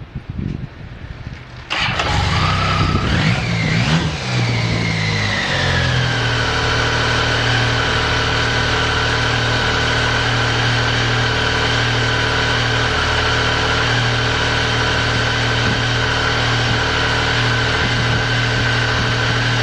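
BMW K75S inline three-cylinder engine catching on the first press of the electric starter about two seconds in. It revs up briefly, then settles into a steady, even idle with no odd noises. A few low knocks come before it starts.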